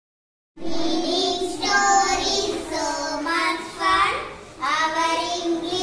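Children singing an English rhyme together, starting about half a second in after silence.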